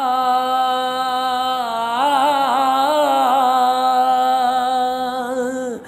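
A man singing a ghazal without accompaniment, holding one long drawn-out note with a wavering ornament in the middle that falls away near the end.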